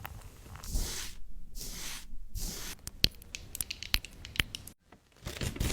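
Close-up handling sounds: a few noisy tearing or rubbing strokes, then a quick run of sharp clicks and taps, a brief pause, and more rustling near the end.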